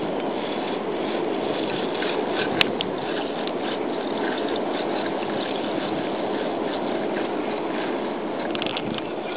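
Steady rushing of wind and water, with one sharp click about two and a half seconds in.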